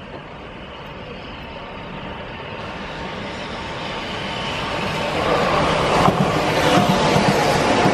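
Keihan 2200 series electric train approaching and passing close by, steadily growing louder as it nears and at its loudest from about five seconds in as the cars roll past.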